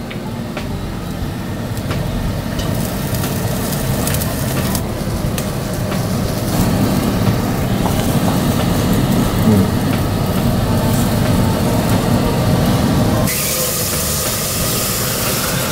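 Garlic, shallots and fish sauce sizzling in a frying pan: a steady sizzle with small crackles over a low rumble. The sizzle turns suddenly brighter and louder about thirteen seconds in.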